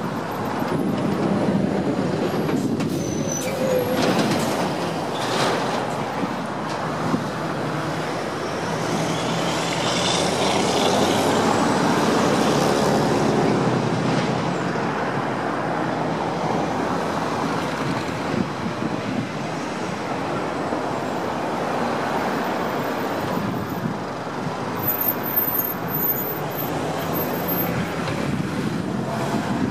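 Road traffic at a roundabout: cars and utes driving past one after another in a continuous wash of engine and tyre noise, loudest around ten to fourteen seconds in.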